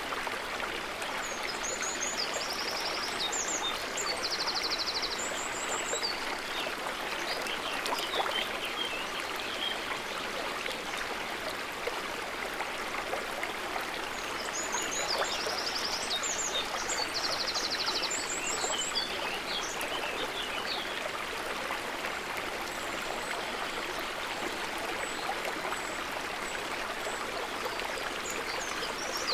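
A river or stream running steadily over rocks, an even rushing of water. A small bird sings high chirping, trilled phrases twice over it, near the start and again about halfway through.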